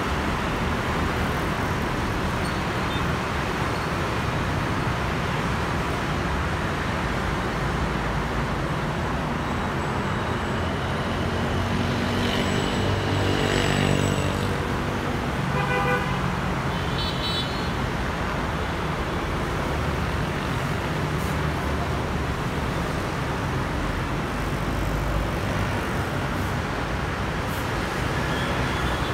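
Steady road traffic noise from motorbikes and cars streaming along a wide multi-lane city road. One vehicle passes louder around the middle, and a short horn toot follows just after.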